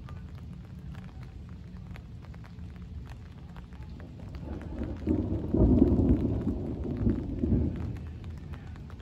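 Thunder rumbling: a low roll that swells about four seconds in, peaks around the middle and dies away near the end.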